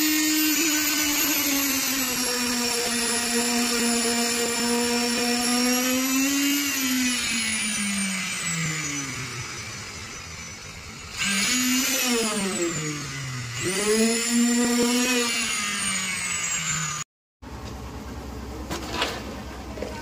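Electric concrete needle vibrator's motor running with a high whine that slowly sags in pitch, then winds down about ten seconds in. It is switched on twice more, rising and falling in pitch each time, and cuts off suddenly near the end.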